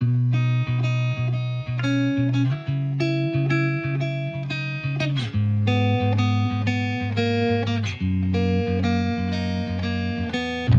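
Background music: a plucked guitar playing a repeating pattern over a steady bass line.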